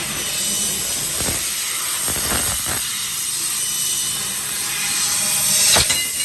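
Fiber laser tube-cutting machine cutting steel box tubing: a loud, steady hiss from the assist-gas jet and the burning cut, with a few short knocks, the clearest near the end.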